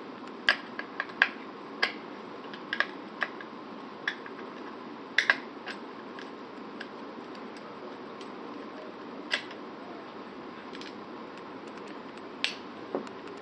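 Light, irregular clicks and taps as a small screw is unscrewed and backed all the way out of a Mossberg 500 shotgun, over a steady hiss. The clicks bunch in the first five seconds, with only a few more after that.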